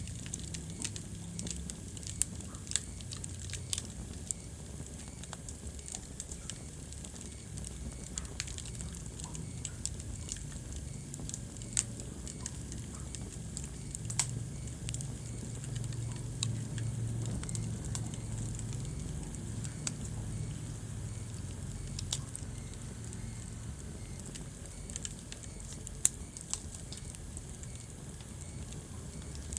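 Wood fire crackling in a fireplace: scattered sharp pops and snaps, a few much louder than the rest, over a steady low rumble of burning flames.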